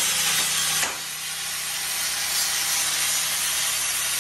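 Angle grinder with a sanding disc running against the inner barrel of an aluminium alloy wheel, sanding down the welded repair. A steady high whine over a hiss, easing slightly about a second in.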